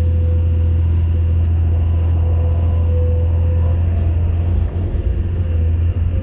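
Excavator's diesel engine running steadily with a deep drone and a faint steady whine above it. About four and a half seconds in the drone turns rougher and uneven, with a few faint ticks.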